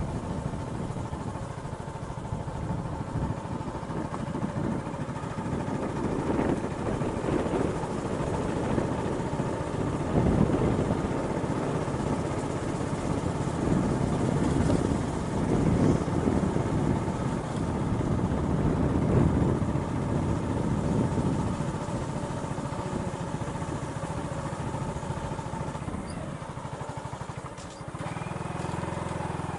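A vehicle engine running while driving along a road, with wind buffeting the microphone in gusts that swell through the middle.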